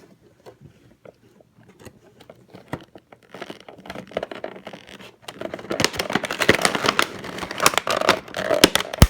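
Toy box packaging being handled: scattered clicks and scrapes at first, then from about five seconds in a louder run of crinkling and tearing.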